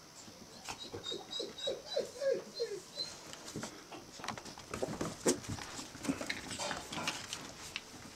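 Five-week-old Australian Terrier puppies playing: a quick run of short yips about a second in, then more short calls mixed with the tapping and scrabbling of claws on a wood floor.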